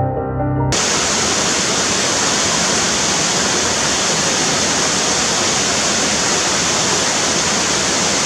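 Piano music cuts off under a second in, giving way to a waterfall pouring into a pool: a steady rush of falling water.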